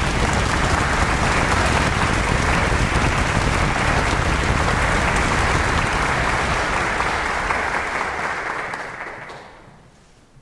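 Audience applauding in a concert hall, steady at first and then dying away over the last two seconds or so.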